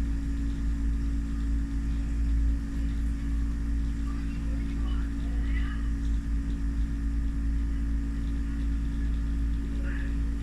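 Steady low machine hum, unchanging in level.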